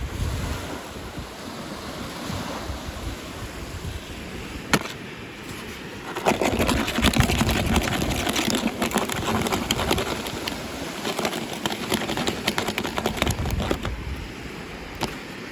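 Packaging rustling and crinkling as it is handled and opened, with one sharp click a little before five seconds in and a busier run of crackling from about six seconds in until near the end.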